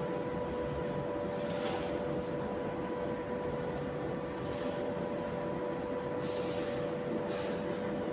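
Steady machine hum with a constant pitch, with a few faint short scrapes over it.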